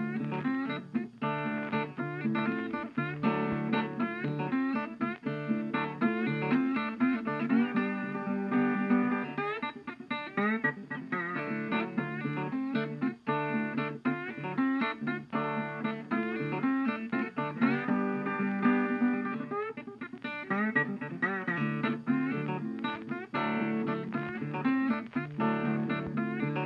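Background music: guitar music with plucked and strummed notes.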